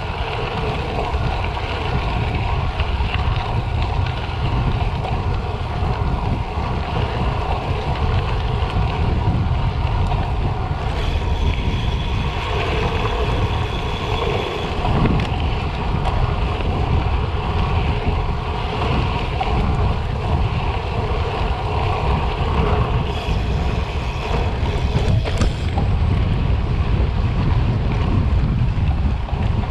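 Specialized Diverge gravel bike's tyres rolling with a steady rumble, with wind buffeting the microphone throughout.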